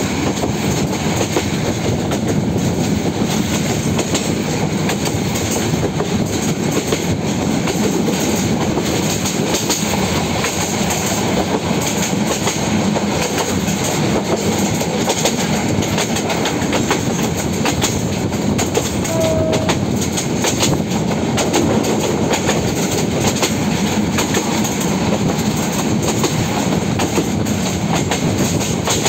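Tista Express passenger train running at speed, heard from beside a coach: a steady rumble and rush, with the clickety-clack of wheels over rail joints.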